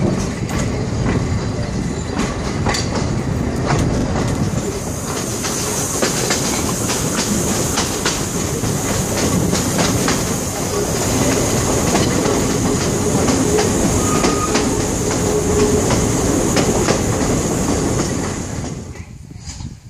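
Narrow-gauge train carriages rolling along the track, heard from on board: a steady rumble with frequent clicks over the rail joints. A high steady whine joins in about five seconds in, and the sound falls away just before the end.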